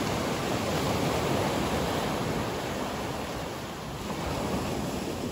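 Small sea waves breaking and washing up a pebble beach: a continuous wash of surf that swells and eases slightly.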